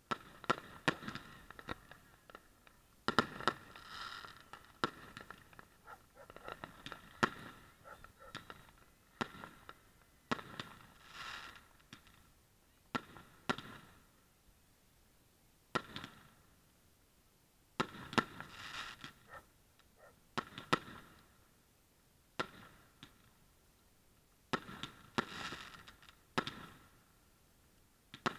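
Aerial fireworks bursting: sharp bangs every second or two, some single and some in dense runs of rapid pops lasting a second or two.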